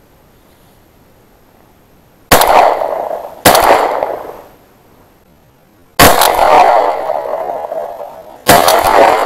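Four loud shotgun shots, the first two about a second apart and the other two a few seconds later, each with a long echoing tail.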